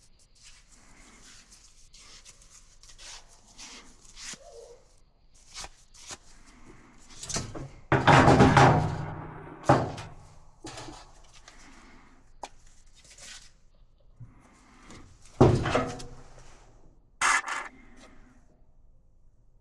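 Knocks, thunks and scraping of dryer parts being handled during a repair, with a louder rough scrape lasting about a second around eight seconds in and shorter ones later.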